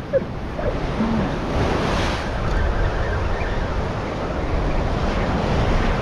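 Ocean surf breaking and washing over the shore rocks, with a surge about two seconds in, and wind buffeting the microphone.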